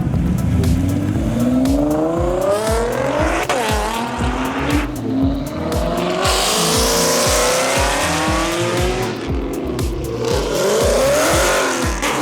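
A car engine accelerating hard, its pitch climbing and then dropping at each upshift through several gears. A steady music beat runs underneath.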